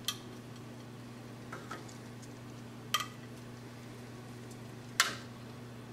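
Metal kitchen tongs clinking against a metal broiler tray and a ceramic plate while drumsticks are moved across, giving a few sharp clinks about two seconds apart and fainter taps between, over a steady low hum.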